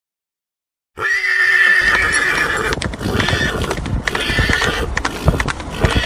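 After a second of silence, a horse whinnies once, loud and drawn out for about a second and a half. Its hooves then beat steadily in sand.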